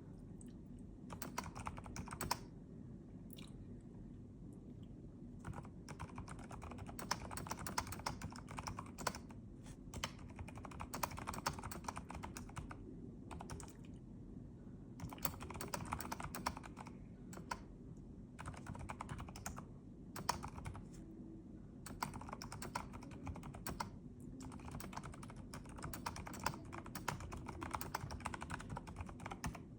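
Keys of a Keychron V6 mechanical keyboard being typed in quick runs of clicks, with short pauses between the runs. A steady low hum lies underneath.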